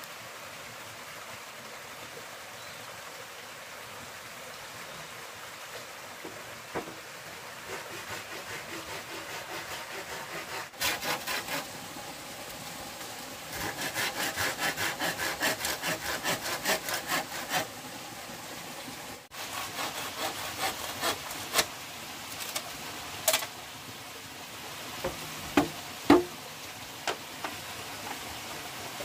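Hand saw cutting through bamboo in steady back-and-forth strokes, about three a second, followed by a few sharp knocks near the end.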